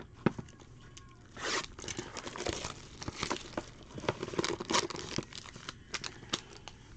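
Trading-card box and foil-wrapped packs being opened and handled: crinkling and tearing of wrapper, with scattered light clicks of cardboard and packs set down. The loudest rustle comes about a second and a half in.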